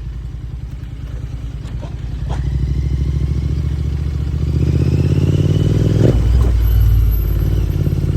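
Royal Enfield Interceptor 650's parallel-twin engine and exhaust running, picking up revs in two steps, about two and four and a half seconds in. A sharp clack about six seconds in, with the engine note dropping low right after.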